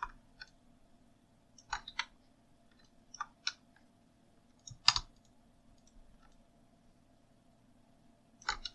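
Computer keyboard keys and mouse buttons clicking in scattered small groups as shortcuts are pressed, the loudest cluster about five seconds in, over a faint steady hum.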